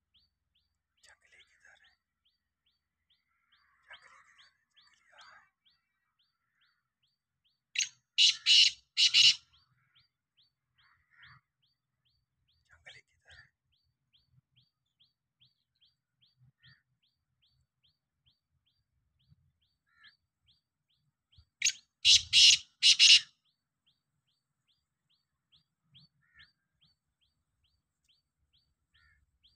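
Black francolin calling twice, each call a loud burst of about four quick notes, about eight seconds in and again about twenty-two seconds in. A faint high ticking repeats about twice a second throughout.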